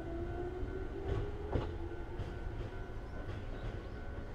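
Chichibu Railway 7500 series electric train standing at the platform, its onboard electrical equipment humming with a steady tone and a pitched whine that rises over the first second or so. Two sharp clicks come a little over a second in.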